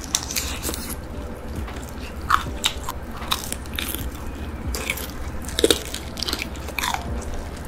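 Crispy fried chicken bitten and chewed close to the microphone: a run of sharp crunches, loudest about two seconds in and again near six seconds.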